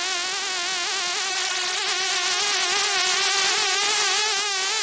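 Housefly buzzing in flight, one continuous buzz whose pitch wavers slightly up and down.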